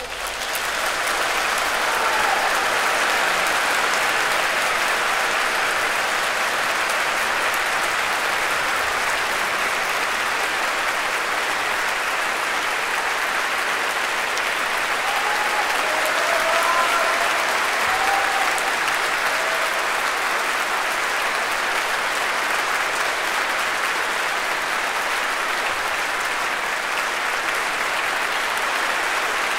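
Concert audience applauding steadily at the close of a live orchestral performance.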